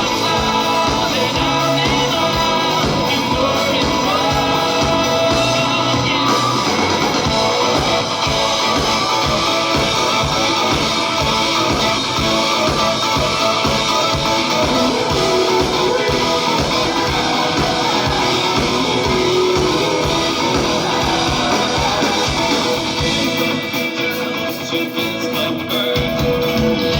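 Rock band playing live: a singer over electric guitars and a steady drum beat.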